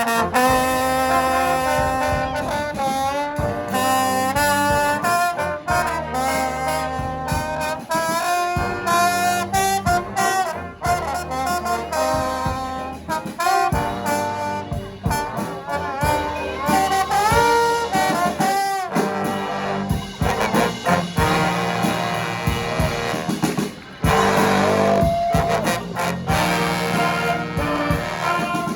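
Brass band playing live, with trumpets and trombones carrying an up-tempo horn arrangement. The music drops out for a moment about three-quarters through, then comes straight back in.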